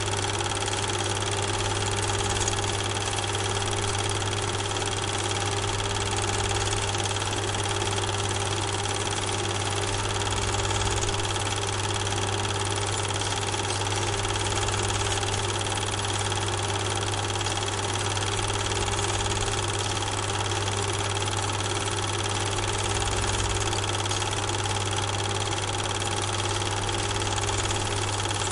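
A steady mechanical hum with an even hiss over it, unchanging, with no separate events.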